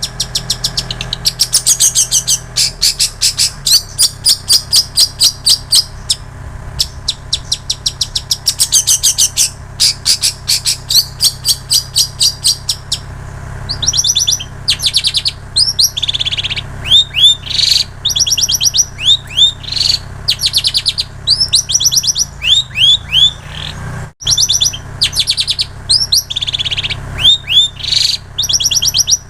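Long-tailed shrike (cendet) singing a mimicked repertoire. The first half is fast runs of high, rapidly repeated chips, about eight a second. After that come short phrases of down-slurred whistled notes, broken by a brief dropout about two-thirds through.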